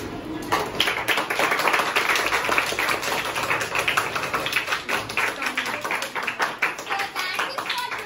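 A group of children clapping: dense, irregular applause that starts about half a second in.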